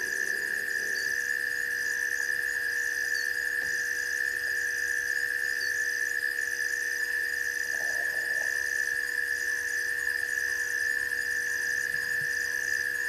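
Night insect chorus: a loud, unbroken high-pitched drone, with a higher chirp repeating about three times every two seconds over it.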